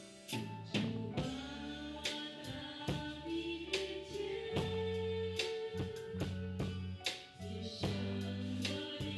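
Live worship band playing a slow song: drum kit, electric bass, acoustic guitar and piano, with singing over it.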